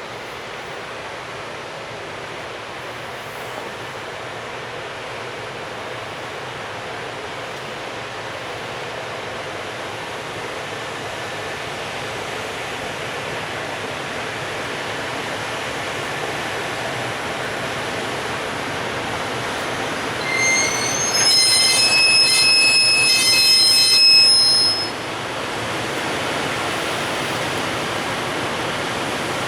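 Freight train pulled by an electric locomotive rolling out, a steady rumble that slowly grows louder. About twenty seconds in, a high-pitched wheel squeal sounds for about four seconds.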